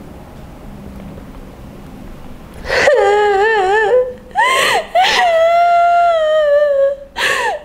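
A woman crying aloud, starting about three seconds in: long, drawn-out wailing sobs with a trembling, wavering pitch, broken by short catches of breath.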